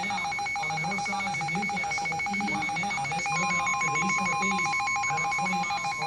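Midland NOAA weather radio sounding a severe thunderstorm warning alert: a rapid, steady two-tone electronic warble. About three seconds in, a continuous single alarm tone joins it; this is the weather radio warning alarm tone that precedes the spoken warning.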